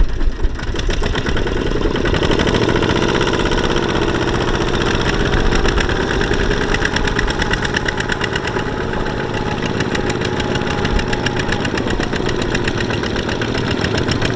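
Single-cylinder diesel engines of two-wheel walking tractors running steadily with a rapid, even chugging as they haul loaded trailers through deep mud.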